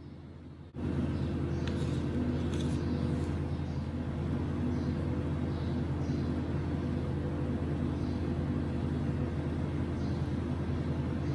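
A steady low machine hum starts abruptly about a second in and runs on unchanged.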